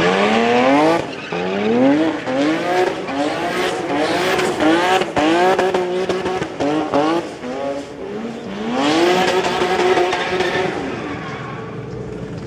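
A drift car's engine revving hard again and again, its pitch climbing with each burst of throttle, over the hiss and squeal of rear tyres spinning and sliding on tarmac. About nine seconds in comes one long rising rev, and near the end the engine settles to a steadier, lower drone.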